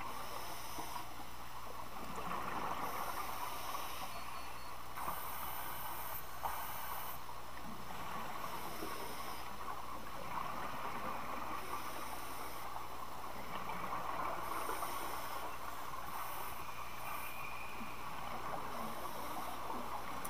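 Muffled underwater rushing and gurgling heard through a GoPro's waterproof housing, swelling every five or six seconds as a scuba diver exhales a stream of bubbles from the regulator.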